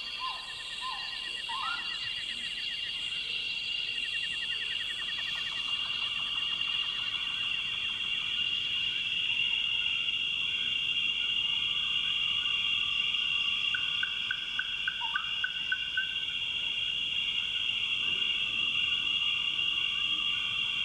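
Night ambience of crickets chirring steadily and continuously, with other insect trills layered over it and a few short chirps near the start.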